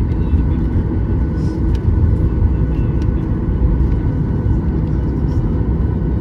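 Steady low rumble of a Boeing 737-800's engines and airframe heard inside the passenger cabin, with a few faint steady tones and occasional small clicks.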